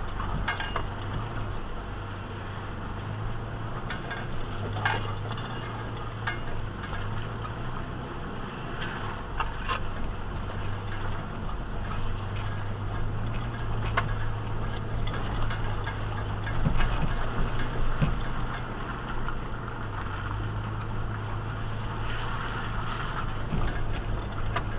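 Toyota 4x4 SUV crawling slowly over a rocky trail: a steady low engine drone with scattered clinks and rattles as the vehicle bumps over rocks.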